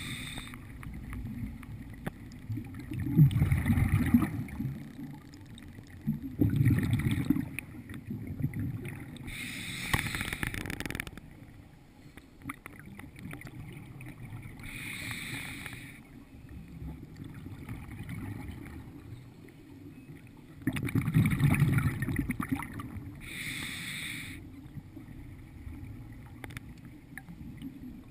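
Scuba diver breathing through a regulator underwater, heard through a GoPro's waterproof housing. Each inhale through the regulator hisses and each exhale is a low bubbling rumble, over a few slow breaths.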